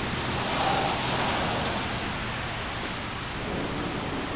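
Steady rain falling on wet pavement and lawn, an even hiss of drops.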